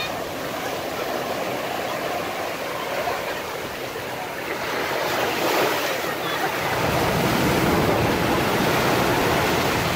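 Small waves breaking and washing up the sand in shallow surf, growing louder from about halfway through as a bigger wave foams in.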